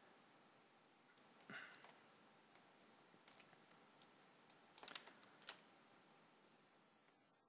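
Near silence over a low steady hiss, broken by a few faint clicks from working a computer: one about a second and a half in and a small cluster about five seconds in.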